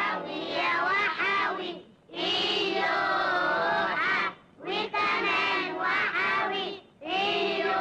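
Children singing a song together in phrases, breaking briefly between phrases about every two to three seconds.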